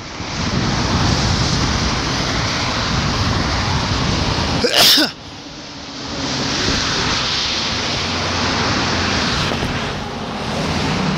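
Wind buffeting the microphone, a steady rough rumble and rush. About five seconds in comes one short, sharp burst of noise, and the wind briefly eases before picking up again.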